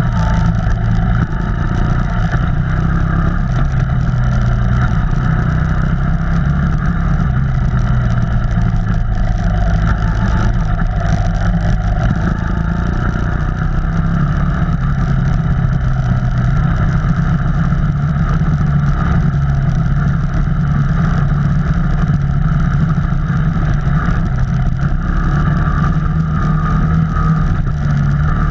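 Off-road vehicle engine running steadily while driving along a trail, its pitch shifting slightly with the throttle.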